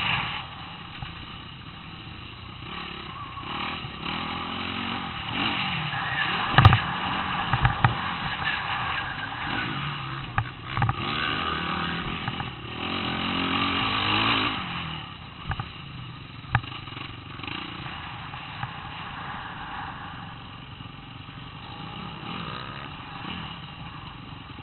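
Dirt bike engine revving up and down as it rides a rough motocross track, with a few sharp knocks from bumps along the way.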